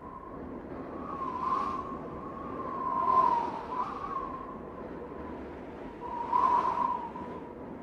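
Howling wind sound effect: a steady, wavering whistle with rushing gusts that swell about one and a half, three and six and a half seconds in.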